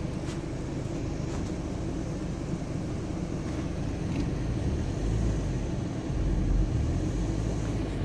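Car driving slowly on a dirt road, heard from inside the cabin: a steady low rumble of engine and tyres that grows a little louder about five seconds in.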